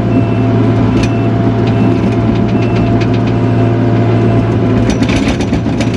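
Takeuchi TL240 skid steer's diesel engine running loud and steady, heard from the operator's seat. A few sharp knocks from the machine come about a second in and again near the end.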